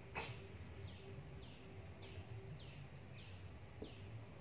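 A bird calling over and over, faintly: a short falling chirp about twice a second. There is a single soft tap just after the start.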